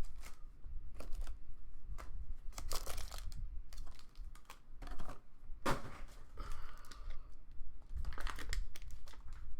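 Irregular crinkling and clicking of plastic wrap and cardboard as a sealed box of trading card packs is opened and handled.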